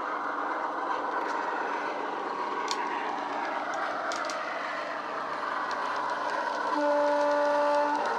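Sound-fitted model Class 45 diesel locomotive playing its SWD recorded engine sound through an EM1 speaker, running steadily as it approaches, with a single horn note held for about a second near the end.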